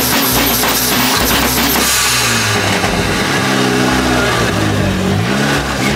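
Turbocharged Chrysler PT Cruiser's four-cylinder engine free-revving while parked, its pitch climbing, holding and dropping again a few times.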